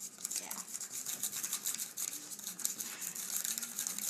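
Frosting mix being stirred and scraped in a small plastic container of a DIY candy kit: a fast, steady run of small scratchy clicks.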